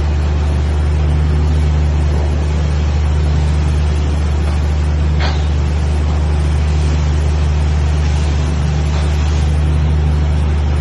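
TIG welding machine giving a loud, steady electrical hum at mains frequency, with a hiss over it, while welding stainless steel pipe. There is one brief click about five seconds in.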